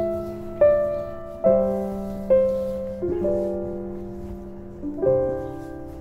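Background piano music: slow, gentle chords, each struck and left to ring and fade, about one a second.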